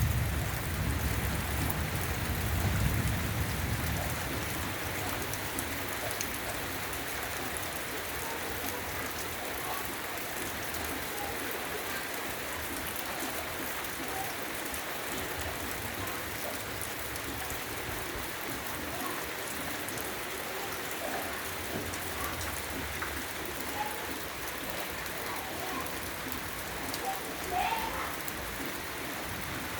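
Heavy rain falling steadily, with the low rumble of thunder fading away over the first few seconds. A brief chirp sounds near the end.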